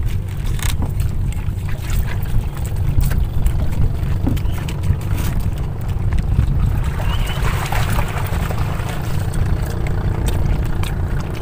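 Wind buffeting the microphone: a steady, loud, low rumble, with a few faint knocks.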